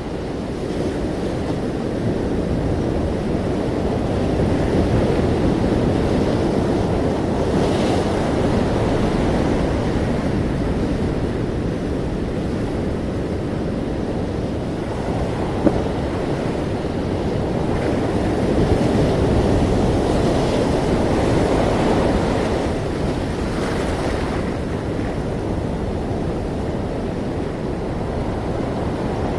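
Ocean waves washing onto a shore in a steady, deep rumble that swells and eases slowly, with wind noise on the microphone.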